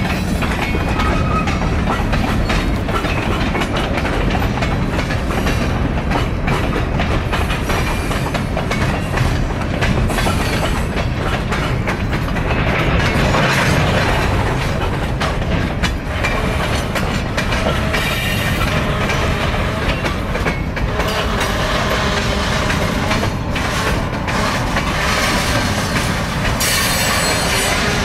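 Freight train cars rolling past: a steady rumble and clatter of steel wheels over the rail joints, with a few brief wheel squeals around the middle and near the end.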